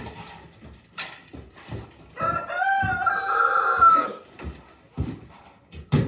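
A rooster crowing once, a single call of about two seconds. A few short knocks come before and after it.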